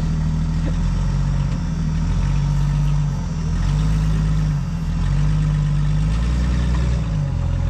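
Side-by-side UTV engine running at low speed, its revs rising and easing off in short steps as it crawls.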